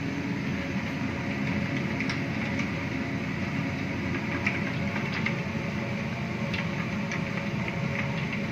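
Mustard seeds and fenugreek starting to pop in hot oil: scattered sharp pops, a few each second at most, over a steady mechanical drone of kitchen machinery.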